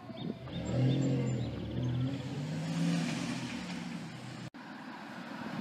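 Car engine running loudly as the car accelerates through a parking lot, its pitch stepping up and down over a few seconds. It cuts off suddenly about four and a half seconds in, leaving a steady hiss.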